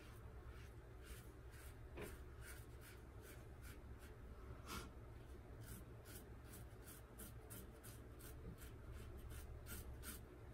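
Gem Micromatic single-edge safety razor with a GEM blade scraping through lathered stubble in a quick series of short strokes, about two to three a second, faint.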